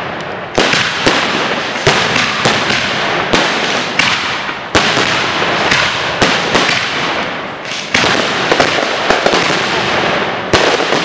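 Aerial fireworks shells bursting at close range: a rapid series of sharp bangs, about one every second or so, over a continuous crackling hiss.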